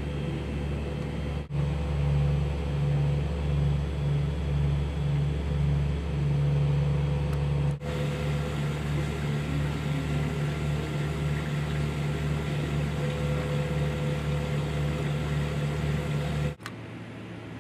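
Dry vacuum pump running with a steady low hum and a regular throb of about one and a half pulses a second. The sound changes abruptly twice and drops to a quieter hum near the end.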